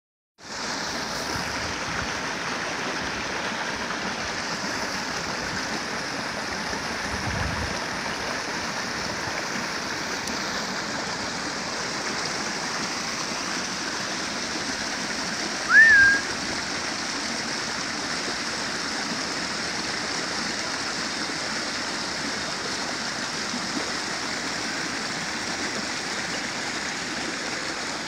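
Steady rush of water spilling over a small waterfall of branches and debris. About halfway through comes one short, loud, high chirp that rises and then levels off.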